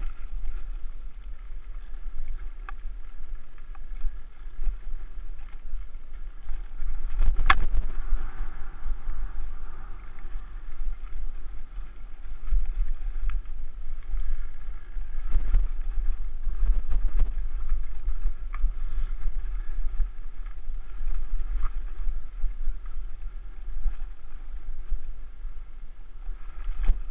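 Mountain bike riding over a dirt singletrack as heard from a bike- or helmet-mounted action camera: a steady low rumble of wind and tyre noise on the microphone, with scattered knocks and rattles from the bike over bumps, the sharpest about seven seconds in.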